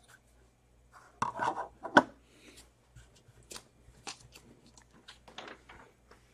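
LEGO bricks being handled on a table: a short clatter of plastic pieces about a second in, then scattered light clicks and taps.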